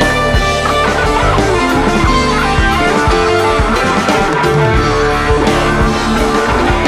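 Background rock music led by guitar, at a steady level.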